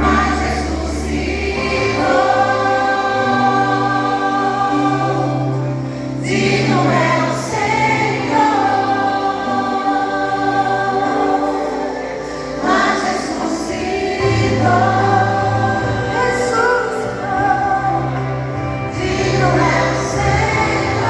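A vocal group singing a Christian worship song, the voices holding long notes over a steady bass accompaniment.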